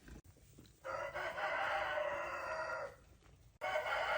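Rooster crowing: two long crows, the second starting near the end.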